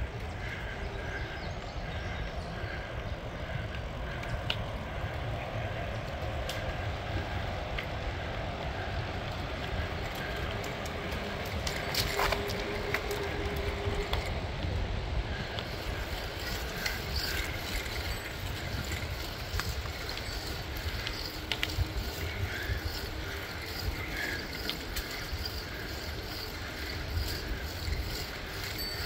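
Bicycle riding along a paved asphalt trail: a steady rumble of tyre and wind noise on the microphone, with scattered light clicks. A short steady whine sounds about halfway through.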